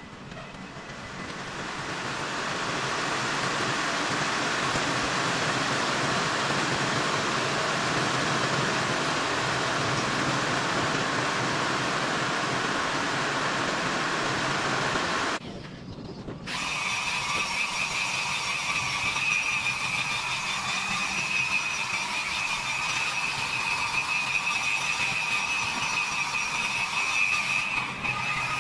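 Power tools running steadily: first a hissing noise for about fifteen seconds, then, after a brief break, a tool with a steady high-pitched whine.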